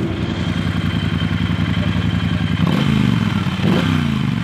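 A 2017 Triumph Bonneville Bobber's 1200 cc parallel-twin engine idles, then its throttle is blipped twice, about a second apart, from a little past halfway. Each rev falls back to idle.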